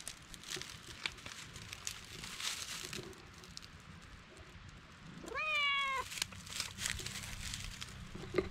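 An orange-and-white cat gives a single drawn-out meow about five seconds in, rising in pitch and then holding. Intermittent rustling and scuffing noises come and go around it.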